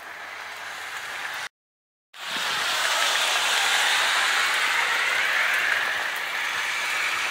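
Rain falling in a steady hiss. About a second and a half in, the sound drops out to dead silence for half a second, then returns louder.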